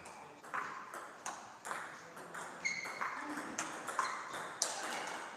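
Table tennis ball being hit back and forth: a string of sharp clicks off paddles and the table, about seven in all, several with a short high ringing ping.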